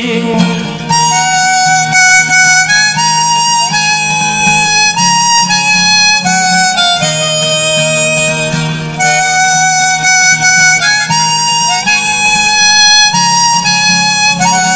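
Harmonica playing a melody of held notes over a strummed acoustic guitar, in an instrumental break between sung verses.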